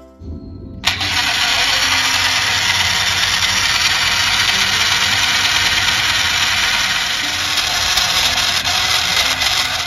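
A small motor starts abruptly about a second in and then runs steadily with a whirring hiss.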